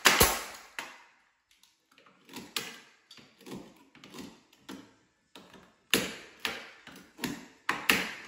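Nail gun firing sharp shots into the wooden door jamb: one at the start and a quick run of about five near the end, with softer irregular knocks in between as shims are set by hand.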